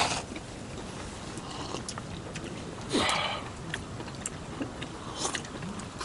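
Eating a bowl of curry udon with vegetables: quiet chewing and small clicks, with one short slurp about three seconds in.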